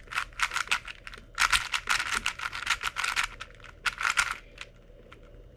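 Plastic MoYu RS4 M 4x4 speed cube being turned, a rapid run of clicky layer turns that thins out to a few scattered clicks after about four seconds.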